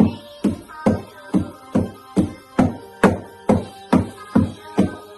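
Upbeat instrumental music with a steady beat of about two strong hits a second over sustained pitched notes.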